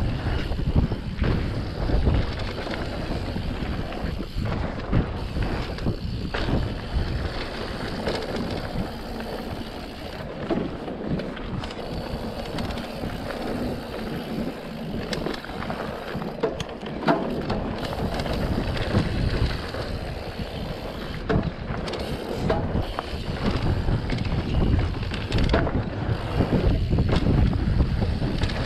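Mountain bike riding down a dirt singletrack: wind buffeting the microphone and tyres rolling on the trail, with scattered clicks and rattles from the bike over bumps. The low rumble eases for a while in the middle and builds again near the end.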